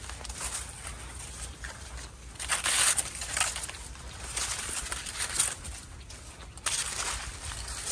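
Dry corn leaves and stalks rustling and brushing past as someone walks between the rows of a cornfield, in irregular bursts with footsteps.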